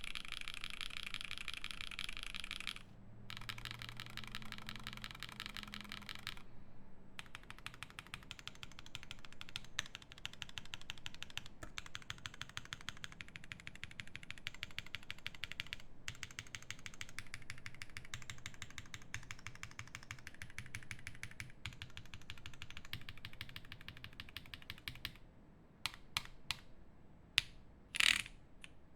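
Fast typing on a Terasu mechanical keyboard with lubed JWK Black linear switches fitted with NK Cream stems, on a polypropylene plate with GMK keycaps: a rapid, continuous run of keystrokes with a few short pauses. Near the end it thins to a few separate clicks, the last one the loudest.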